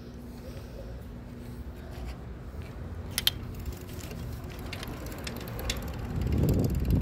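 Rolling ride over pavement: scattered clicks and rattles over a low rumble, with wind buffeting the phone's microphone and swelling near the end.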